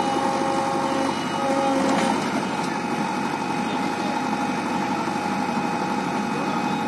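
JCB 3DX backhoe loader's diesel engine running steadily while the machine holds itself up on its stabilizer legs and front bucket. Its note shifts slightly about two seconds in.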